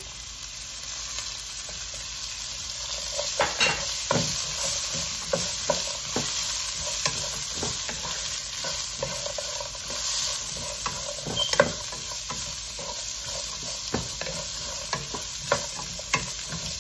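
Ivy gourd strips sizzling in hot oil in a nonstick pot, with a steady hiss. A wooden spatula stirs them, knocking and scraping against the pot many times.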